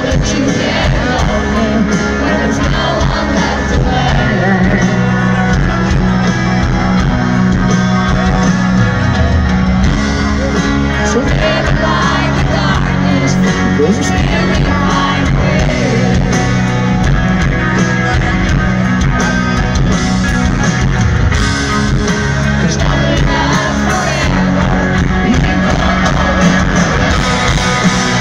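A rock band playing live at full volume: piano and electric guitar over drums, with a voice singing. The sound is steady and continuous.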